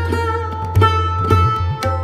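Background music: a plucked string melody with bending, gliding notes over a steady low drone, struck about twice a second.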